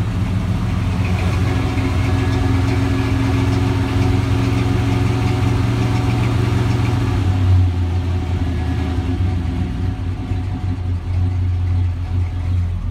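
1984 GMC 3500's 350 V8 idling steadily, still cold and warming up after a start in about 3 °F weather. About seven and a half seconds in, the engine note drops slightly.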